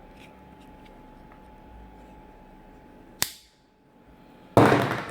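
A single sharp click, then about a second and a half later a loud burst of rustling, scraping noise as the sneaker packaging is handled.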